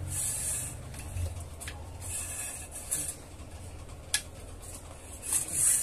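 Steel screwdriver working the nuts on a small water pump's cast-iron impeller housing as they are tightened: scraping metal on metal, with a small click about a second and a half in and a sharp metal click about four seconds in.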